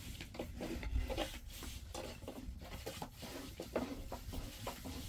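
Flat turning stick scraping and rustling sheets of thin flatbread on a domed metal griddle (saj), in a series of short, irregular scrapes.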